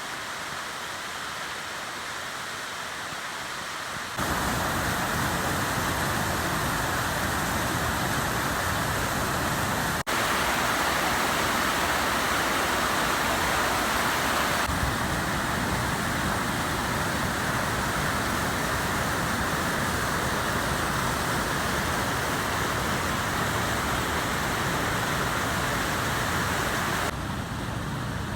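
Waterfall, falling water rushing in a steady, even hiss. It jumps abruptly louder about four seconds in, breaks for an instant near the middle, and drops back quieter near the end, as the shots change.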